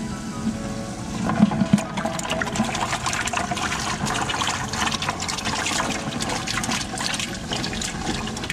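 Water splashing and sloshing in a live-bait bucket as a hand stirs through it and scoops up live shrimp, with an aerator bubbling. The splashing starts about a second in and is loudest just after.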